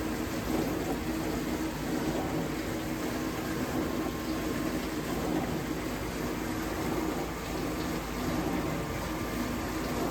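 Vintage dishwasher running, its pump motor humming steadily under a wash of water noise inside the tub. The owner suspects the pump is restricted, since the water no longer seems to hit the tub at full force.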